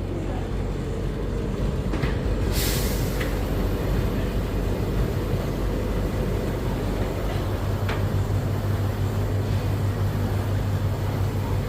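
Steady low mechanical hum of a running tumble dryer, with a brief hiss about two and a half seconds in and a few light clicks.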